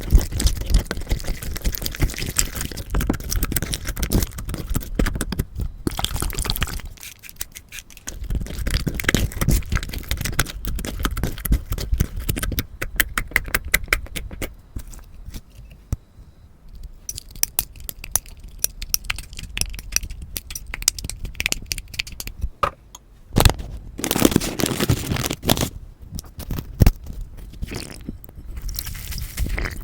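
Konjac slime being squeezed, stretched and pressed by hand, giving dense crackling and popping clicks in several stretches separated by short lulls.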